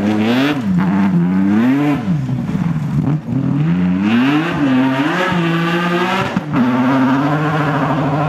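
Rally car engine revving hard, its pitch climbing and dropping repeatedly with throttle and gear changes, then holding a steadier high note for the last second or two.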